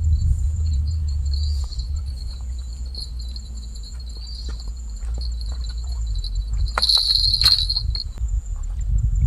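Insects trilling steadily at two high pitches, one of them pulsing, over a steady low rumble. A brief louder rustling burst comes about seven seconds in.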